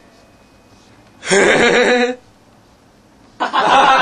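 A person laughing in two bursts, one about a second in and another starting near the end, with quiet room tone between.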